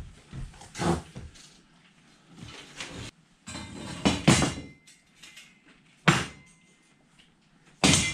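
Cardboard box rustling and metal chimney-kit brackets and pipe parts clattering as they are lifted out and set down on a plywood floor: a string of separate bumps and scrapes, with sharp metal knocks about six and eight seconds in.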